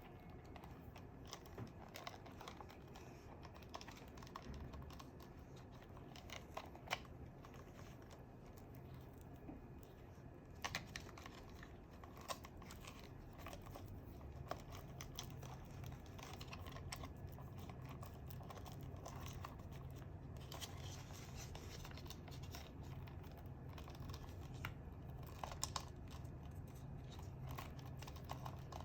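Scattered light clicks and rustling of small parts being handled: a flashlight pressure switch and its cable being fitted onto an airsoft rifle's rail handguard. A faint low hum sits underneath.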